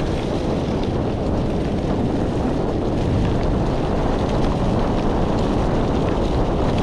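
Steady wind rush buffeting an action camera's microphone while riding a mountain bike.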